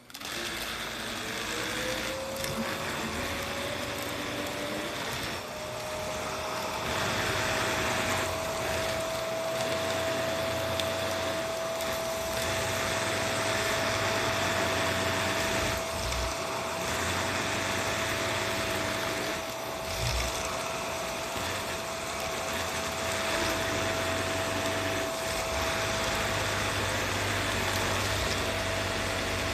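Vacuum cleaner switched on, its motor whine rising over the first few seconds and then running steadily. The rush of air grows louder and softer now and then as it is used.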